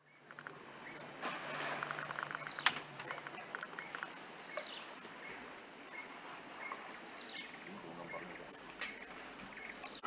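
Tropical rainforest insects droning steadily at a high pitch, with scattered short chirps and rapid ticking calls. Two sharp clicks come about two and a half seconds in and again near the end.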